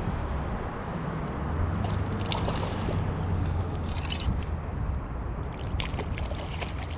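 Shallow river water rushing and lapping close to the microphone, broken by a few sharp splashes as a hooked brown trout thrashes at the surface, the last of them near the end.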